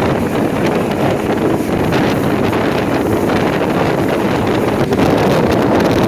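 Wind buffeting the microphone on a moving fishing boat: a steady, loud rush.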